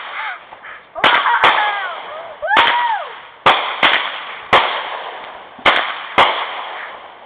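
Consumer fireworks going off: about ten sharp bangs, one or two a second, each trailing off into a crackling hiss, with a few tones rising and falling in pitch among them.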